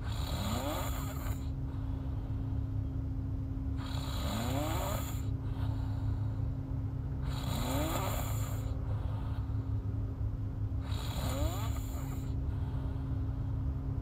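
A woman snoring in her sleep with her mouth open: four snores about three and a half seconds apart, each about a second long and rising in pitch, over a steady low hum.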